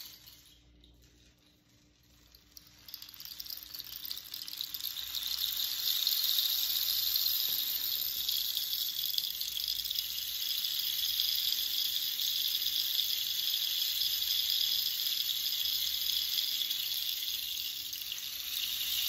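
Cholla cactus rain stick tilted slowly, its fill trickling down inside as a steady hissing patter like falling rain. It starts faintly about two seconds in and builds to a constant level by about six seconds.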